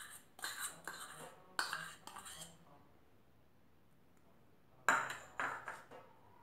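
Kitchen utensils clinking and scraping against a bowl and the mixer jar as cracked eggs are tipped into the jar, in two short bursts: one at the start and one about five seconds in.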